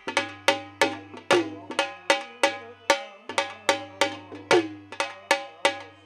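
Dhol drum played in a steady folk rhythm, about three strokes a second, each stroke ringing on briefly.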